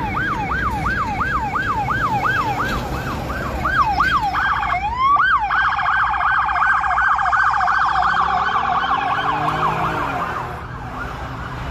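An emergency vehicle's electronic siren in a fast yelp, about three sweeps a second. About halfway through it gives one slower rising sweep and then a rapid warble under the yelp, and it fades out about ten seconds in, over low traffic rumble.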